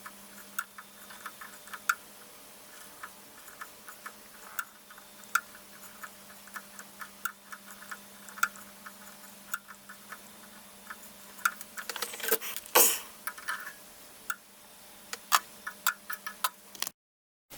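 Irregular light clicks and ticks, some close together and some spread out, over a steady low hum. About twelve seconds in comes a louder scraping rustle. The sound drops out completely for a moment near the end.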